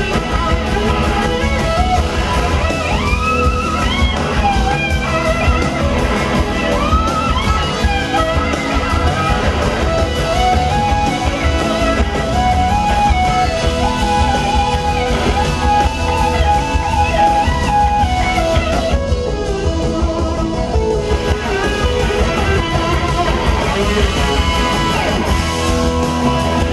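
Live blues-rock band playing: an electric slide guitar solo on a Gibson SG carries the tune in gliding, bending notes over drums and bass.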